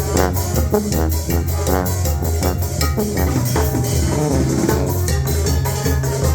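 Latin dance music with a steady beat, driven by drums and hand percussion such as maracas over a bass line.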